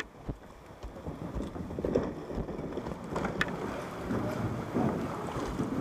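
River water splashing and lapping around kayaks, with wind noise on the microphone and a couple of light knocks.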